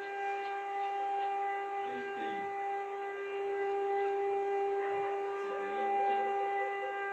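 Emergency alert system alarm: a steady electronic tone made of several pitches sounding together, held without a break.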